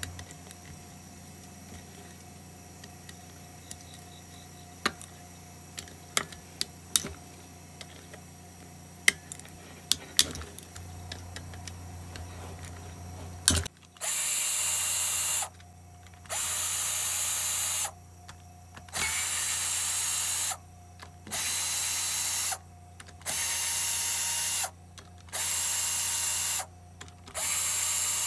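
A cordless power driver runs in about seven bursts of roughly a second and a half each, from about halfway on, backing out the 3/8-inch bolts that hold the bottom plate on a push-mower engine. Before that there are only scattered clicks and taps of tools being handled.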